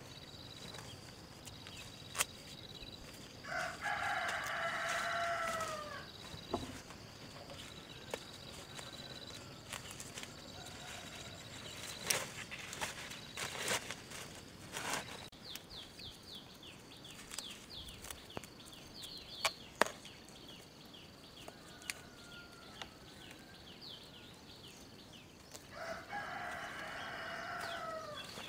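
A rooster crowing twice, about four seconds in and again near the end, each crow one long call that drops in pitch as it ends. Scattered sharp knocks and clicks fall between the crows, with a run of quick bird chirps in the middle.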